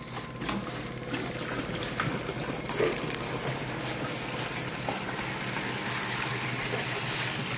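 Water starting to gush through a hose into a sluice tub as a gate valve is opened, with a few sharp metallic clicks from battery clamps being clipped on, over a steady low hum.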